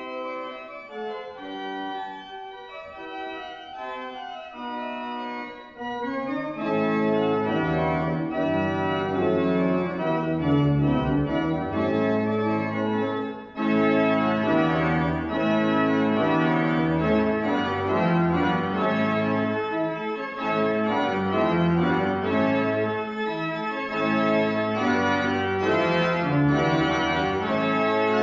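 Organ music in sustained chords, soft and sparse for the first six seconds or so, then fuller and louder, with a brief drop in level about halfway through.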